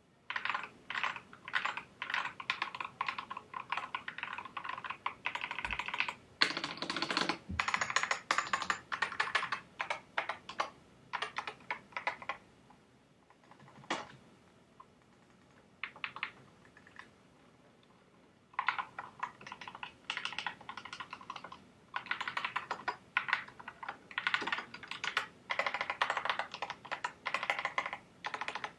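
Typing on a Corsair K100 gaming keyboard: rapid runs of keystroke clicks in bursts. About halfway through there is a pause of several seconds with only a few isolated keypresses before fast typing resumes.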